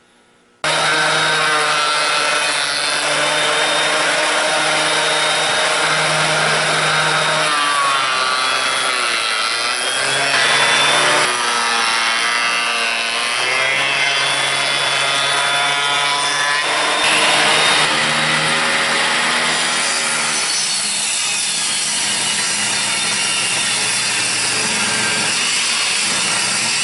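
Electric woodworking machines cutting driftwood: a benchtop jointer-planer planing a log, then a table saw ripping it. Steady motor and cutter noise starts about half a second in, with the motor's pitch sagging and recovering as the wood loads the blade.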